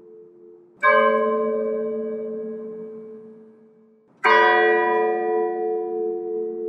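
Church bell tolling slowly for a funeral: two strikes about three and a half seconds apart, each ringing out and slowly dying away, its low hum lingering between strokes.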